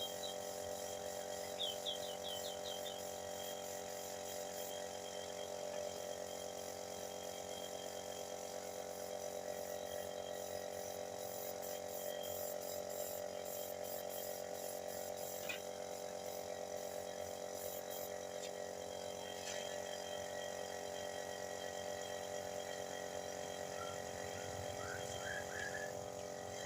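A steady machine hum made of several steady tones, with faint ticking over part of it and a few short high chirps about two seconds in and again near the end.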